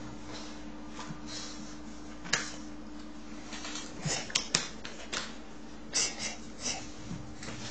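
Scattered short, sharp clicks and scuffs, one at a time and in a quick cluster about halfway through, over a steady low hum.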